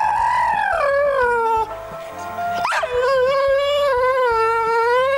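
A pit bull-type dog howling: two long howls, the first rising and then falling, the second held steady with a slight waver.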